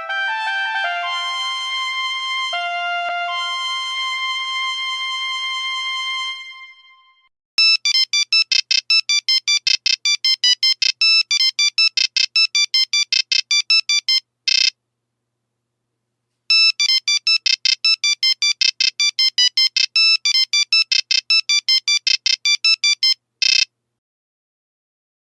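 Nokia 3310 ringtones played back. A tune of held notes fades out about six seconds in. Then a different ringtone of rapid, short beeps plays for several seconds, stops for about two seconds, and plays through again.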